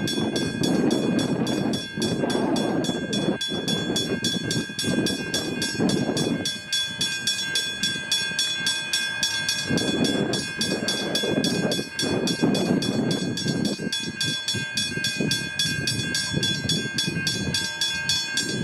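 Level crossing bell ringing continuously with a rapid, even ring, over the low, uneven rumble of a train standing at the platform.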